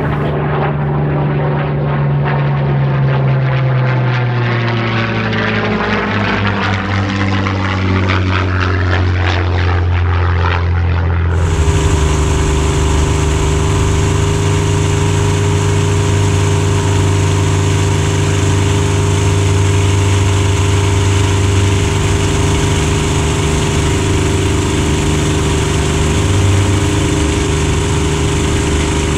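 Supermarine Spitfire's Rolls-Royce Merlin engine and propeller passing, its note sliding steadily lower with a sweeping, phasing quality. About eleven seconds in it cuts abruptly to the steady drone of the Merlin and propeller in cruising flight, heard from a camera mounted on the aircraft.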